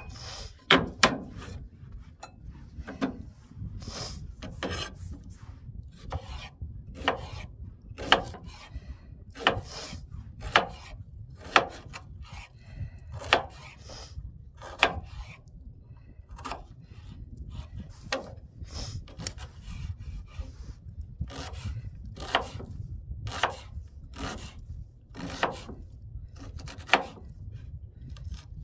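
Kitchen knife chopping onion on a cutting board: irregular sharp knocks, about one a second, some with a scraping rasp, over a steady low rumble of wind on the microphone.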